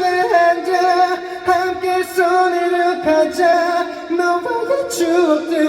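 Live singing over backing music: a concert crowd singing along with a pop-rock song's melody.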